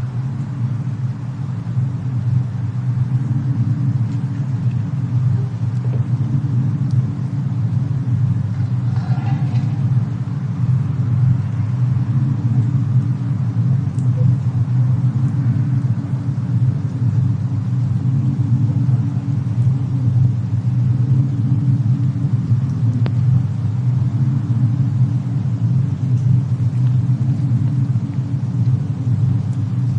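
Fireplace-and-snowstorm ambience: a steady low rumble that swells up over the first couple of seconds and then holds, with a few faint crackles.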